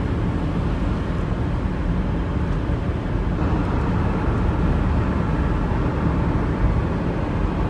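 Steady drone of a car being driven, engine and road noise heard from inside the cabin, low and even throughout.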